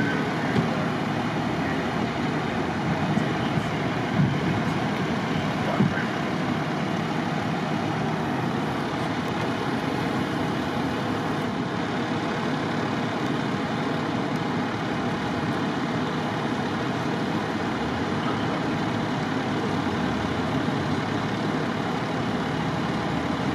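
Steady rumble of idling trucks and road traffic, with a few faint knocks in the first six seconds.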